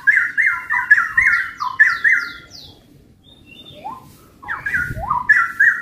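Two straw-headed bulbuls (cucak rawa) singing together, one answering the other: quick runs of loud, liquid whistled phrases with falling slurs, a short lull in the middle, then more phrases near the end.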